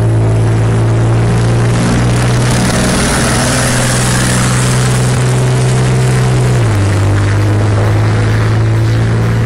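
Military tanks' engines running hard in a drag race, a loud steady drone that drops to a lower pitch about two-thirds of the way through.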